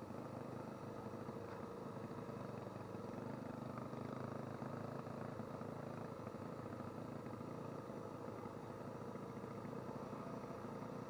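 Adventure motorcycle engine running steadily at low speed on a gravel track, heard from on board, with a steady hiss above the engine note.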